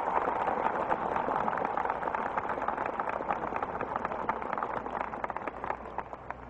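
A very large crowd applauding, a dense crackle of clapping that is loudest at the start and dies away toward the end.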